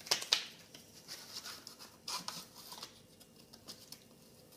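Plastic paint markers clicking and tapping against each other as they are handled: a couple of sharp clicks near the start and a few more about two seconds in.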